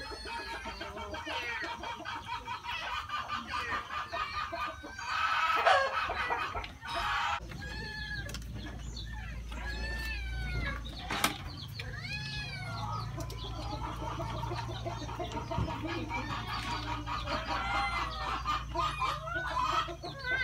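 Chickens clucking and calling again and again, over a low steady hum.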